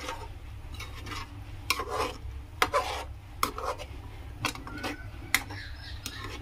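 Metal ladle stirring curry gravy in a metal pan, scraping along the pan and knocking against its side about once a second.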